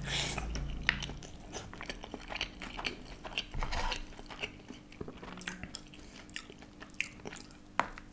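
Close-miked mouth sounds of a person biting into and chewing a stuffed flatbread wrap: irregular wet clicks, smacks and small crunches.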